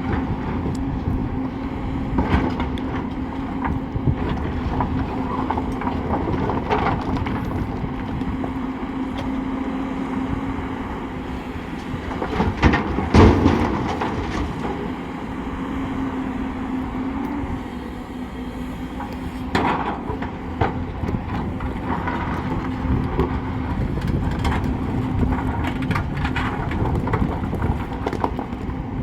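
Heavy diesel earthmoving machinery running steadily, its engine holding a constant hum, with scattered clanks and knocks and a louder burst of clatter about 13 seconds in.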